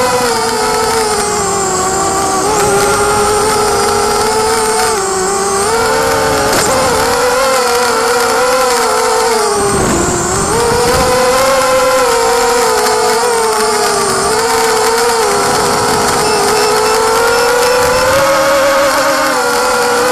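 Electric motors of a small FPV quadcopter (DYS BE1806 brushless motors on 5045 propellers), picked up by its onboard camera: a steady buzzing whine whose pitch rises and falls with the throttle, dropping sharply about halfway through and then climbing back.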